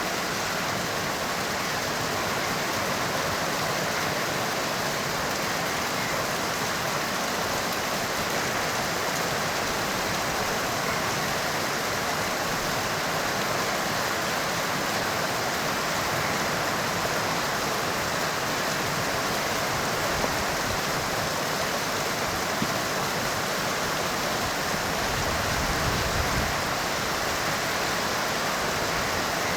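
Heavy rain falling steadily, an even hiss with no let-up. A brief low rumble swells and fades near the end.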